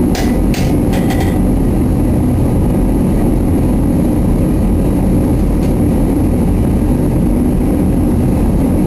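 A few sharp hammer strikes on metal in the first second and a half, and a fainter one about six seconds in, over a loud, steady low rumble.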